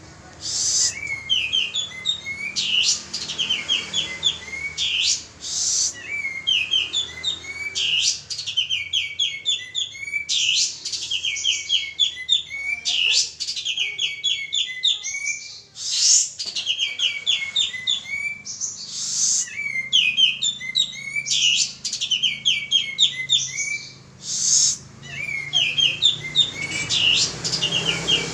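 Male kapas tembak (pied triller) singing steadily, a song bird-keepers play as a lure to make other birds sing. It gives quick trilled phrases of short high notes every couple of seconds, broken now and then by a brief harsh burst.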